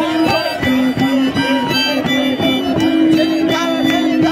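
Harmonica (rondín) playing a repeated figure that swaps between two held notes, over a steady beat of stamping feet, a few stamps a second, from the dancers.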